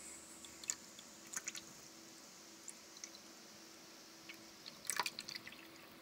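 Electric pet drinking fountain running: a thin stream of water trickling from its spout into the basin, with a few sharper drips and splashes, the loudest cluster about five seconds in.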